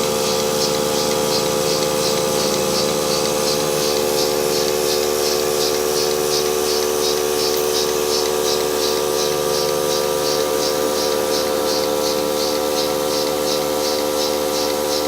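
Portable electric bucket milking machine running: the vacuum pump motor's steady hum, with a regular, rapid hissing pulse from the pulsator.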